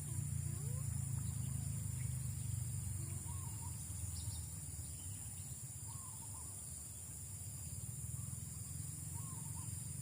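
Outdoor rural ambience: a steady high insect drone over a low rumble, with faint short wavering animal calls about every three seconds.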